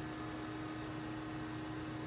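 Steady hum from an Amann Girrbach Motion 2 dental milling unit, with one constant low tone and a faint hiss, as the mill returns to its program position after a blank holder change.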